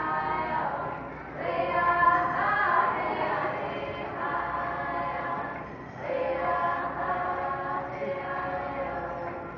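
A group of voices, women and children among them, singing a powwow hand drum song in unison, in three long phrases with short breaks between them.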